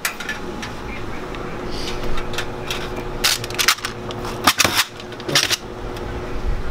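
Antique hand-operated candy chopper's metal blades clacking down through a rope of hard candy. There are several sharp clacks, one at the start and most between about three and five and a half seconds in, over a steady fan hum.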